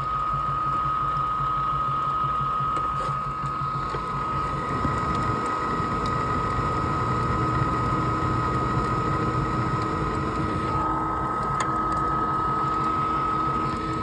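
Residential furnace running: a steady motor whine over a low hum.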